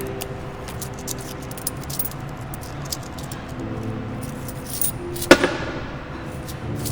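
Coins clinking as loose change is counted out by hand: many small clicks, with one louder clink that rings briefly about five seconds in, over quiet background music.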